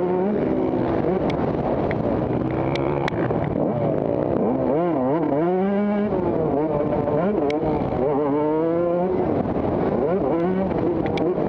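Several motocross bike engines running at once, their pitch rising and falling as they rev up and back off, with a few sharp clicks.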